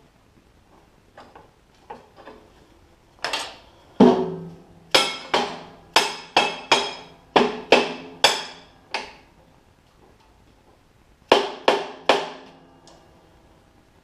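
Red soft-faced mallet tapping a steel workpiece and its clamp down in a metal-cutting bandsaw's vise to seat it before the cut. About a dozen ringing metallic knocks come in quick succession, then a pause, then three more.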